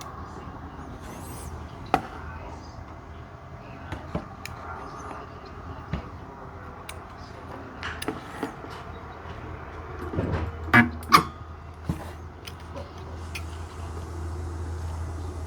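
Sunko 709A battery spot welder firing single pulses onto nickel strip over 18650 cells: sharp snaps every couple of seconds, test welds on a slightly thicker strip. A steady low hum runs underneath, with a few louder knocks about two-thirds through.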